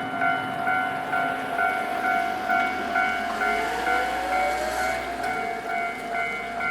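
Japanese level crossing warning bell ringing in a steady repeated clang, about two and a half strokes a second. About three and a half seconds in, a passing train adds a low rumble and a whine that rises in pitch for a couple of seconds.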